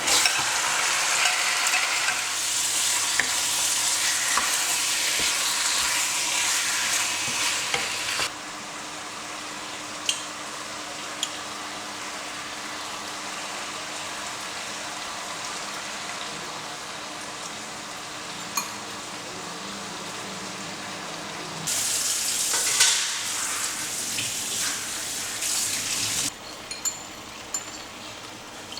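Food sizzling as it is stir-fried in a pan, with a few sharp clicks of the spatula against the pan. The sizzle drops suddenly to a softer hiss about eight seconds in, then comes back loud for a few seconds past the twenty-second mark before easing again.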